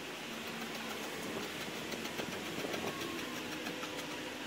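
A blade cutting through fiberglass cloth, giving rapid repeated ticks as it parts the glass strands. A motor vehicle engine runs in the background.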